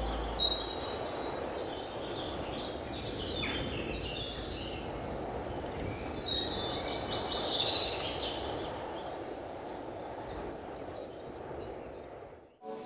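Birds chirping and singing in short clusters over a steady outdoor background hiss, with the loudest calls at the start and again about six to seven seconds in. The sound fades out just before the end.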